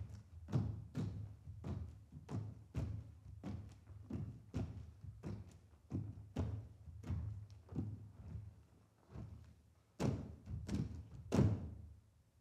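Slow, steady drum beats, a little under two hits a second, each a deep thud with a short ringing tail. Near the end come a few louder hits, then the beat stops.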